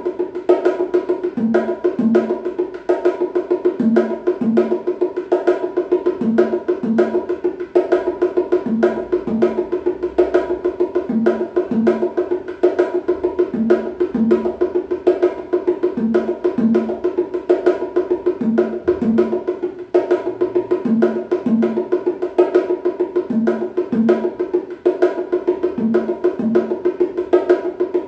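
A pair of bongos played with bare hands in a steady, fast rhythm: a dense run of quick strokes, with a pair of deeper strokes coming round about every two and a half seconds as the same practice pattern repeats.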